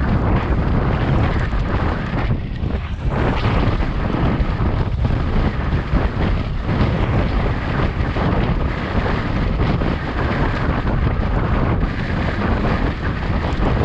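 Wind buffeting a camera microphone during a bicycle ride: a steady, loud rushing that wavers a little in level.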